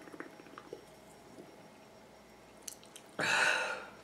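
Faint gulping and swallowing clicks as a carbonated drink is drunk from a can, then one loud breathy exhale about three seconds in that fades out over under a second.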